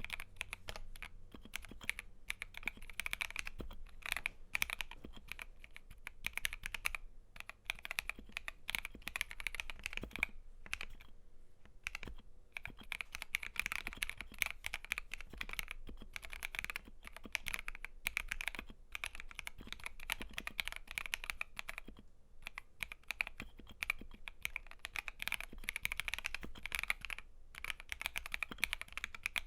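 Steady typing on an FL.eSports FL680 mechanical keyboard with stock Gateron CAP yellow linear switches, PBT double-shot keycaps and lubed plate-mount stabilizers: a fast run of keystroke clacks with a few short pauses, the longest about a third of the way in.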